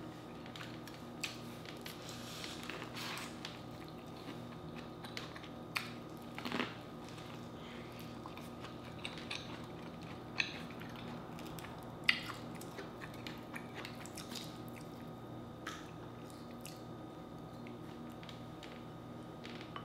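Close-miked eating of a seafood boil: chewing and mouth sounds, with scattered short crackles and smacks as the seafood is picked apart by hand. The louder snaps come about six, ten and twelve seconds in, over a faint steady hum.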